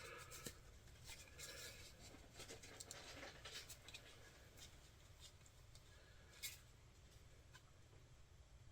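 Near silence with faint scratching and handling noises, small clicks scattered through the first few seconds and one sharper click about six and a half seconds in.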